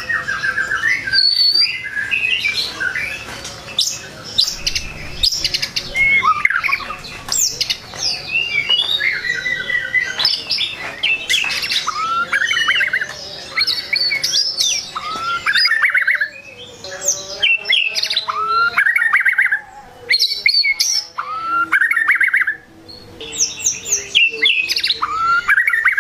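White-rumped shama singing a fast, varied song of whistles, quick rising sweeps and harsher notes, with a few short pauses in the second half. It is a full-repertoire song of the kind used to provoke rival shamas.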